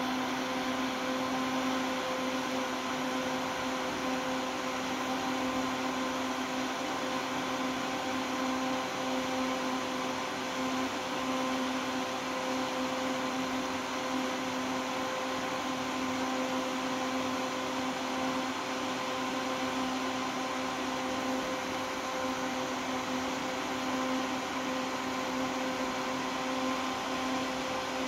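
Vortice Punto exhaust fan running steadily at full speed: an even rush of moving air with a constant low motor hum and a few fainter higher tones above it.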